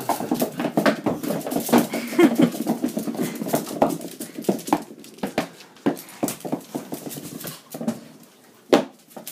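Small dogs scrambling and playing on a hard wooden floor: claws clicking and skittering, sharp knocks from toys and balls, with dog grunts and whimpers mixed in. The activity is busiest in the first half and dies down near the end.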